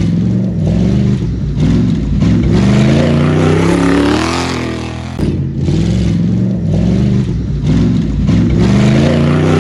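Off-road 4x4 race vehicles' engines revving hard, the pitch climbing and dropping again and again as they power over dirt mounds. The sound changes abruptly about five seconds in.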